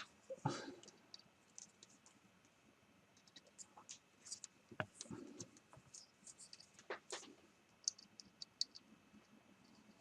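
Faint, scattered clicks and scratches of electrical cables and clip leads being handled and connected.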